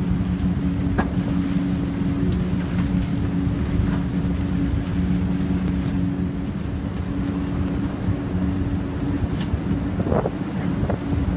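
Bucket wheel excavator at work: a steady mechanical drone from its bucket-wheel drive, with two held hum tones, as the wheel digs. Scattered clicks of falling material run through it, with a cluster of knocks about ten seconds in.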